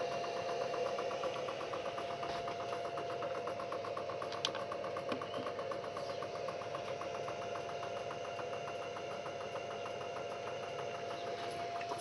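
Large LG washing-machine direct-drive motor spinning as a generator, driven through an inverter from a 12-volt battery: a steady whirring hum with a steady whine and a fast, even ticking.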